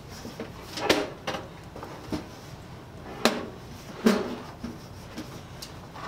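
Several knocks and clunks as a small toaster oven is handled, turned and shifted about on a wooden workbench, the loudest about a second, three seconds and four seconds in.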